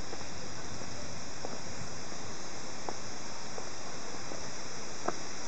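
Steady high-pitched hiss of outdoor summer-forest ambience, with faint short clicks about once a second from footsteps climbing stone steps.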